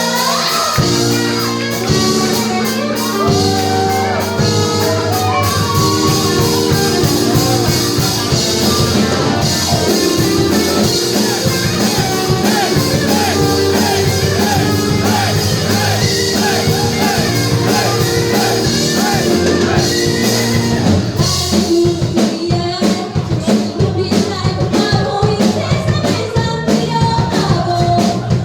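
A rock band playing live with a lead singer: sung vocals over electric guitars, bass, drums and keyboards. The drums hit harder in the last several seconds.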